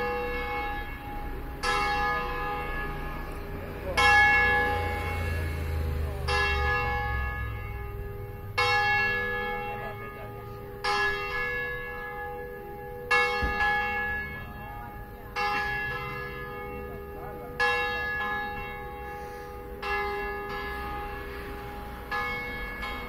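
The third bell of a five-bell church ring, swung a distesa (Italian swing-ringing), its clapper striking a little over every two seconds, each stroke ringing on into the next; the strokes grow weaker near the end. It is rung to call people to the weekday evening mass.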